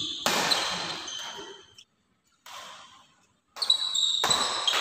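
Badminton rally on an indoor court: sharp racket strikes on the shuttlecock and players' shoes squeaking on the court floor. There is a burst of sound at the start, it goes nearly quiet for a moment in the middle, and more strikes and squeaks come near the end.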